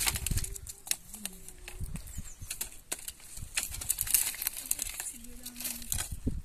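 A run of irregular sharp clicks and snaps, with a few brief voice-like sounds in the background.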